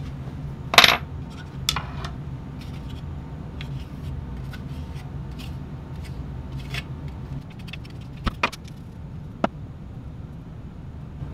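Scattered clicks and light scrapes of an arrow and a screw-in broadhead being handled and fitted at a workbench, the sharpest click about a second in, over a steady low hum.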